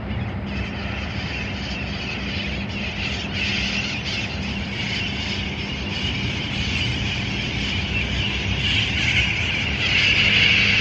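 A flock of parrots squawking and chattering, many short shrill calls overlapping without a break and growing louder toward the end, over a steady low hum.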